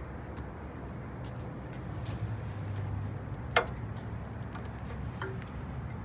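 Quiet handling sounds at a small gasoline engine, with a few light clicks and one sharp click a little past halfway, over a low steady rumble. The engine is not running.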